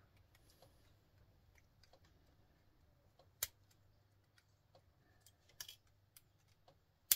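Scattered small sharp clicks of plastic cable connectors and their metal pins being handled and pulled apart, the loudest about three and a half seconds in, with a faint low hum underneath.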